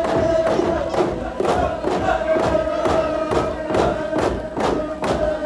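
Dance song: a group of voices chanting a held, wavering melody over a steady beat of about three thumps a second.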